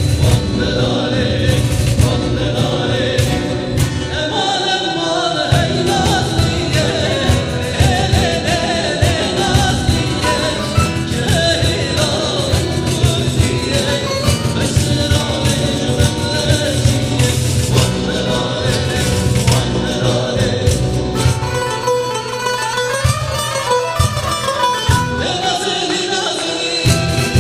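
Kurdish folk song: a voice singing a wavering melody over instrumental backing with a steady beat. The low accompaniment thins out for a few seconds near the end.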